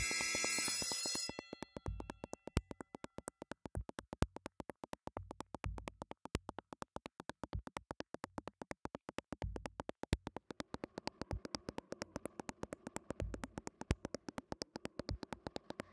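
Improvised electronic music: a fast, even clicking pulse of about seven or eight clicks a second, with a few deep bass thumps. A bright synthesizer burst fades out over the first second, and a hazy synth drone swells in the second half.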